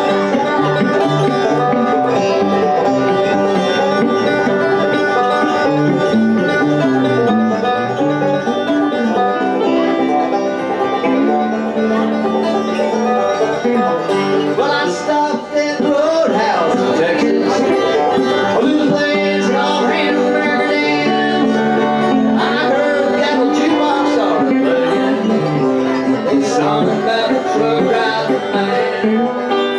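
Banjo and electric guitar playing together in an instrumental bluegrass-country passage, the banjo picking a fast run of notes over the guitar.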